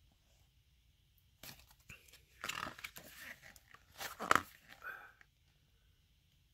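Pages of a paper photo book being turned by hand: rustling and flapping paper from about a second and a half in until about five seconds in, loudest about four seconds in.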